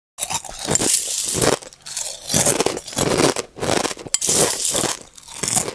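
A man biting into and chewing a crispy fried-chicken zinger burger right at the microphone: irregular wet crunches, about two a second.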